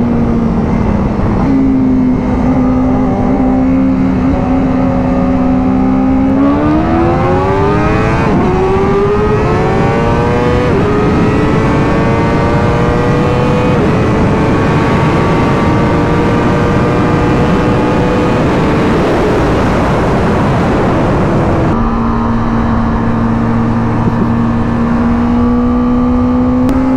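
Motorcycle engine under way. It holds a steady note, then accelerates with the pitch climbing in a few short steps, holds a higher steady note, and about 22 seconds in is back at the lower note. Rushing wind noise runs underneath.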